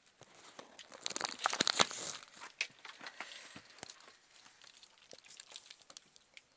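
Crinkling, rustling noise made up of many small crackles and clicks. It is loudest for about a second near the start, then thins to scattered light clicks.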